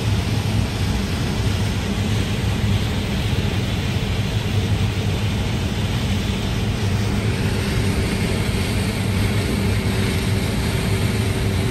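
A vehicle engine running steadily: a low, even hum under a broad rushing noise that holds without a break.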